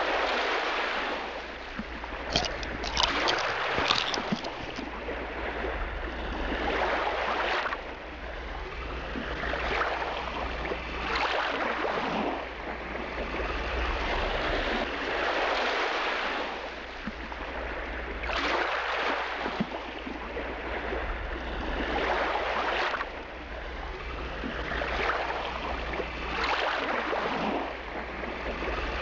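Small lake waves lapping and washing onto a sandy shore, swelling and falling every two to three seconds, over a steady low rumble.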